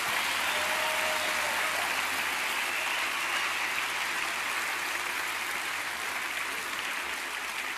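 A large congregation applauding, a steady dense clapping that eases off slightly toward the end.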